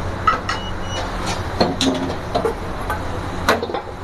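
A few sharp metal clanks and knocks as a steel wok and ladle are handled on a restaurant stove, over a steady low hum of kitchen burners and extraction.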